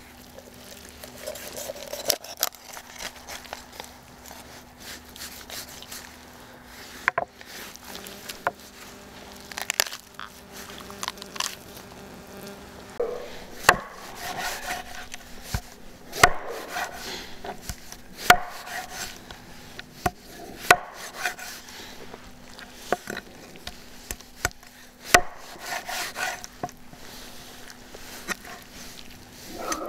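Cleaver chopping through raw chicken on a wooden cutting board: irregular sharp knocks as the blade strikes the board, with softer cutting and rubbing sounds of the meat being worked between strokes.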